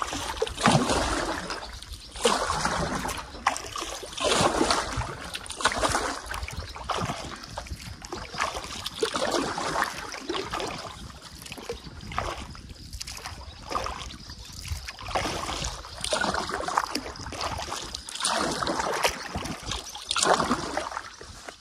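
Canoe paddle strokes in calm water, a swish of water with trickling drips off the blade, repeating about every two seconds.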